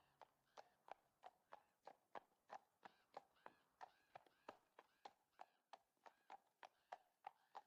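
Faint clip-clop of a horse's hooves in an even rhythm, about three strikes a second.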